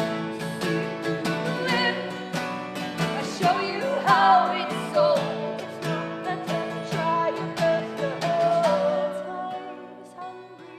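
Live acoustic music: acoustic guitars played with singing over them, easing into a quieter passage near the end.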